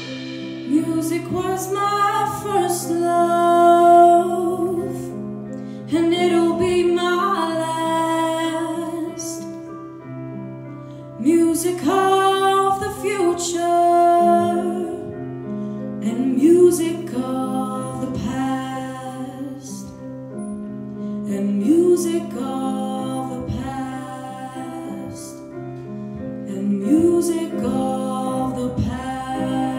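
School big band playing a swing tune live, with horns over piano, bass and drums. Phrases start about every five seconds, their notes sliding up into pitch.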